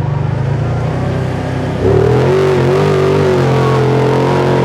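Kawasaki Teryx side-by-side's V-twin engine running hard under full throttle, its revs jumping sharply higher about two seconds in and held there. The machine is straining to climb out of soft creek mud.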